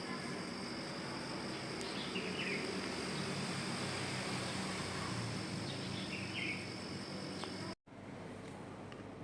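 Sanyo SAP-KC74GGC air conditioner running: a steady fan and motor hum under a constant high-pitched tone. The sound drops out for an instant near the end and comes back quieter.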